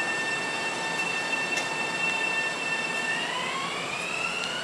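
Long Island Rail Road M7 electric multiple unit coming into the station: a steady high whine from its electric propulsion over a running rumble. About three seconds in, the whine glides upward in pitch.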